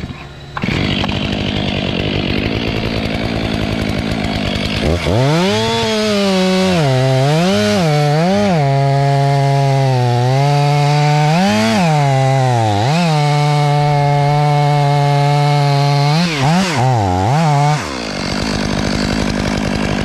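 A chainsaw runs steadily at first. From about five seconds in, a Stihl MS500i two-stroke chainsaw cuts into the pine trunk at full throttle, its engine pitch repeatedly sagging and climbing back as the chain bites into the wood. Near the end it settles back to a steady run.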